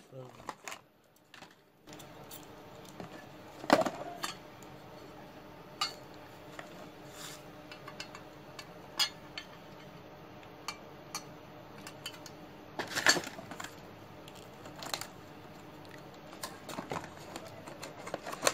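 Small tools and packaged items being handled in a cardboard box: scattered clinks, clicks and clatters of metal and plastic, loudest about four seconds in and again around thirteen seconds. A faint steady hum sets in about two seconds in.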